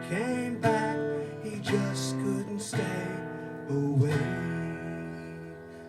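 Acoustic guitar strummed about once a second, with the closing chords ringing and dying away near the end.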